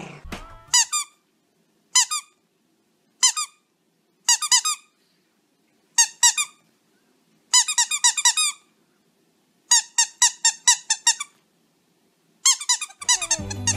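Squeaky dog toy squeaked in short, quick bursts, a few high squeaks at a time about every second, with quiet gaps between.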